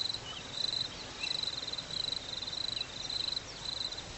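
A cricket chirping steadily outdoors: short, high, trilling chirps, about two a second. A few faint, brief falling chirps sound underneath.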